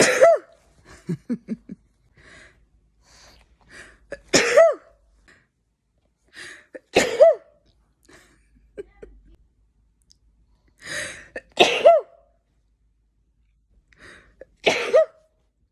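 A person sneezing five times in a row, one every three to four seconds, each sneeze with a quick in-breath just before it: a sneezing fit from allergies.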